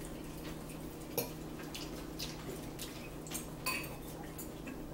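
Metal fork clicking and scraping against a salad bowl: a few short, sharp clinks spread over several seconds, over a steady low hum.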